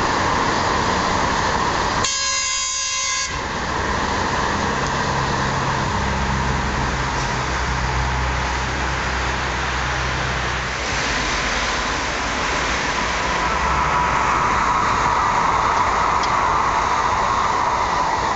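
CRH high-speed electric trains passing at speed on a viaduct: a continuous rushing noise of wheels and air. About two seconds in, a sharp tone with many overtones sounds for about a second, and a low steady hum runs through the middle.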